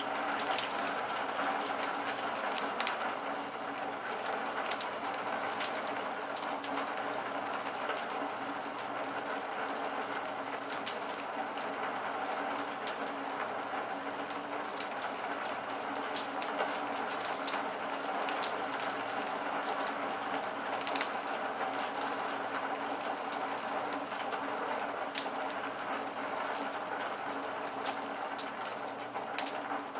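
Steady rain falling, with scattered sharp ticks of individual drops hitting a surface.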